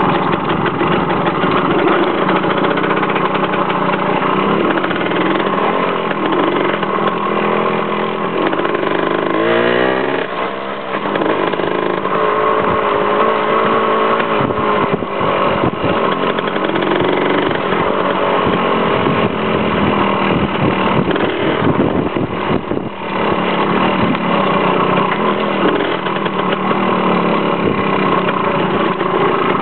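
Engine of a ridden motor vehicle running steadily. Its pitch climbs as it speeds up about ten seconds in.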